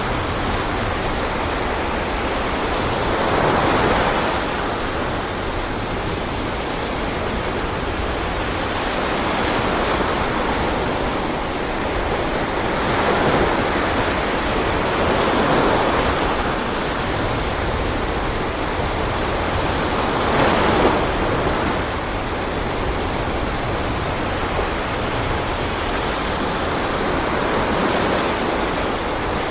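Steady rushing of sea waves and wind at sea, swelling every few seconds as waves wash past.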